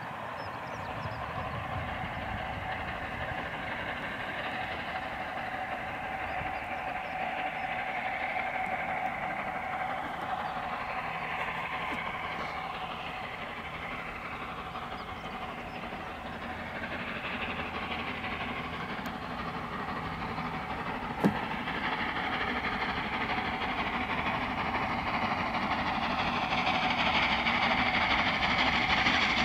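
Peppercorn A2 three-cylinder Pacific steam locomotive No. 60532 Blue Peter working a loaded test train at a distance. Its exhaust and the train's running noise grow steadily louder as it approaches. A single sharp click comes about two-thirds of the way in.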